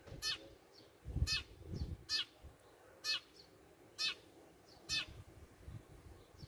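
A sparrow perched on a cable repeatedly chirping: short, sharp single chirps about once a second, seven in all.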